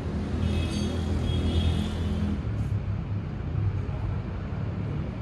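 Steady low rumble of a motor, swelling for a couple of seconds with a faint whine over it, then settling.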